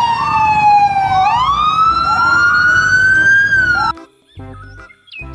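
Police car sirens wailing, more than one at once: the loudest slides slowly down in pitch, swings back up and holds, while another keeps rising over it. They cut off suddenly about four seconds in.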